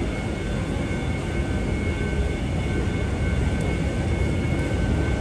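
Busy city street ambience: a steady low rumble of traffic, growing slightly louder toward the end, with two faint, steady high tones running through it.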